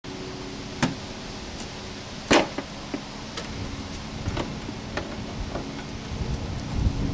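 Sharp plastic clicks and taps from tools and gloved hands working at a car's plastic tail-light housing. The two loudest come about one and two and a half seconds in, with fainter ones after, over a steady low hum.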